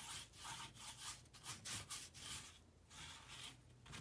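Large watercolour wash brush, which the painter thinks is goat hair, swished back and forth across watercolour paper while laying in a blue wash. It makes a quiet series of brushing strokes, about two a second, with a short pause about two-thirds of the way through.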